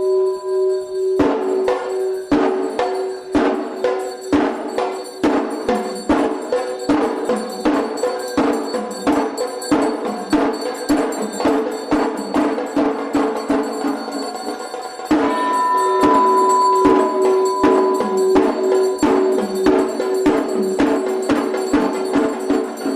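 Sri Lankan hevisi temple drumming, a fast dense run of drum strokes, over a temple bell rung without pause. The drums come in about a second in, and the bell rings out louder again about two-thirds of the way through.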